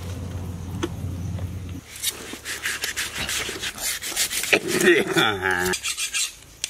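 Knife scraping the scales off a large fish in quick repeated rasping strokes, starting about two seconds in after a low steady hum. A voice speaks briefly in the middle of the scraping.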